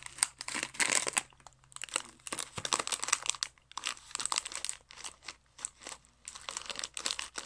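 Clear plastic bag crinkling in quick, irregular crackles as a hand rummages through the jelly beans inside it.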